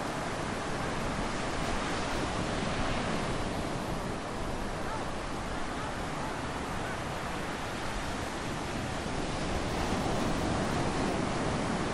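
Ocean surf breaking and washing up a sandy beach in a steady roar of waves, with wind on the microphone. It grows a little louder near the end.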